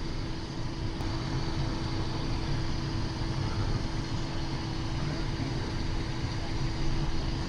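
Steady cockpit noise of a Cessna Citation XL jet in flight on approach: a constant rumble of airflow and engines with a steady hum running under it.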